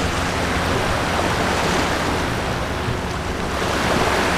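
Small waves washing steadily onto a sandy beach, with wind on the microphone.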